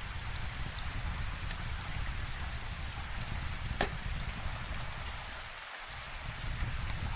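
Steady rainfall with a low rumble, overlaid by scattered small sharp crackles of a wood fire, one louder pop about halfway through.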